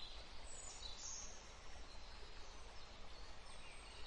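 Faint outdoor ambience: a steady hiss and low rumble with high chirping calls a few times, from birds or insects.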